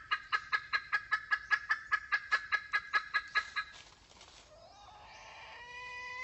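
Red junglefowl hen clucking in a fast even run of about six clucks a second, used as the hen call that lures wild males to the trap. The clucking stops about three and a half seconds in. Near the end a drawn-out call rises in pitch and then holds.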